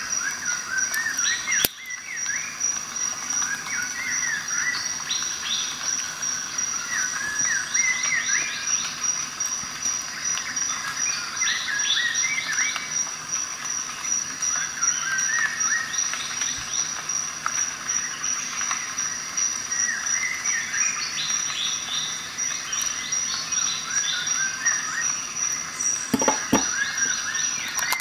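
Birds chirping in quick, varied phrases over a steady high-pitched insect-like trill, with a few soft knocks near the end.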